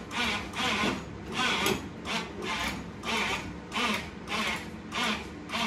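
Hand-worked lifting gear operated in steady, even strokes, a little over two a second, each stroke a short scraping, squeaky burst, as the truck cab is moved onto the new chassis.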